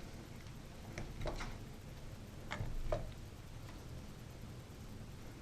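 A few light clicks and taps of equipment being handled, most likely the small tripod and camcorder, scattered over the first three seconds. They sound over a faint steady hiss.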